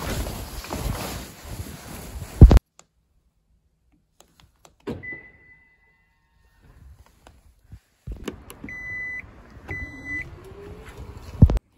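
Car body sounds: a door shuts with a loud thump, then a single long electronic beep. A power tailgate then beeps twice, its motor whines, rising in pitch, and it latches shut with a thump near the end.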